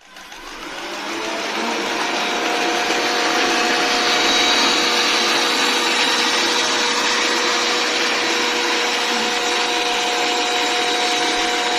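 Xiaomi robot vacuum cleaner running: a steady whir of its suction fan and motor with a steady whine on top, swelling over the first second or two and then holding.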